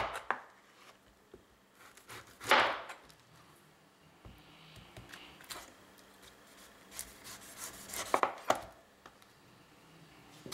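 Chef's knife cutting through a peeled pineapple and striking a plastic cutting board. There is a sharp cut at the start, a longer slicing stroke about two and a half seconds in, and a quick run of several cuts near the end.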